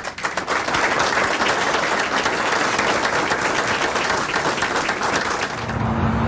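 An audience applauding, many hands clapping steadily. Near the end it cuts off and gives way to a low steady rumble.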